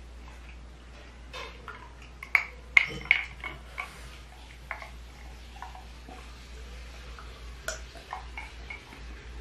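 Close-miked gulping and swallowing while drinking from a glass mug: a series of short wet clicks and pops, loudest in a cluster a little over two seconds in, then scattered smaller ones.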